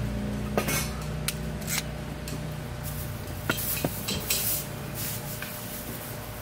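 Camp cooking preparation: scattered clicks and clinks of utensils and dishes being handled, over a low steady hum.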